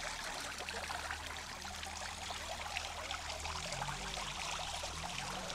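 Steady splashing and rushing of running water, with a low hum underneath.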